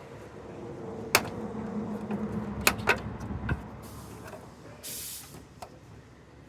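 A metal spoon prying at the turn-signal lamp housing of a 2007 Chevy Express, giving sharp clicks and snaps: four over about two and a half seconds, then a short hiss about five seconds in.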